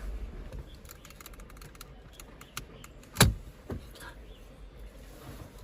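Handling noises from dashboard trim work: scattered light clicks of plastic parts and tools, with one sharp knock about three seconds in and a smaller one just after.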